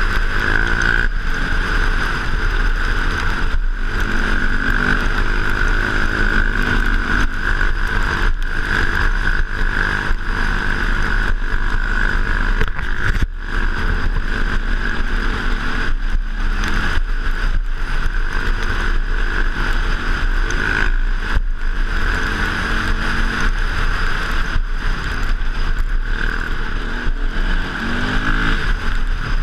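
KTM dirt bike engine running under way at riding speed, the revs rising and falling with the throttle, with brief dips in the sound now and then.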